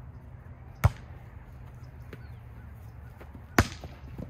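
Volleyball being struck by players' hands and arms during a rally: two sharp smacks about three seconds apart, with a fainter hit just before the end.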